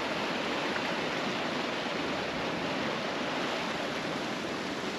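Ocean surf washing in among the rocks of a rocky shoreline, a steady rush of water.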